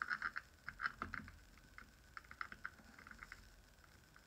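Light, irregular metal clicks and taps in quick clusters as small parts are worked by hand on a chainsaw, busiest in the first second and again midway through.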